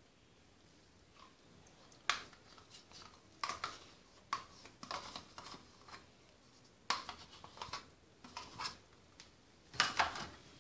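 A small spoon clinking and scraping against dishes and a stainless-steel mixing bowl, in scattered short clicks with quiet gaps between, busiest near the end.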